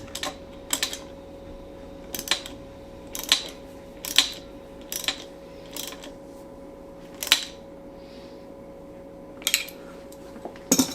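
Sharp metallic clicks and taps of a hand tool on the Ducati 848 timing-belt tensioner as its pulley lock nut is tightened, about ten irregular clicks roughly a second apart, over a steady hum.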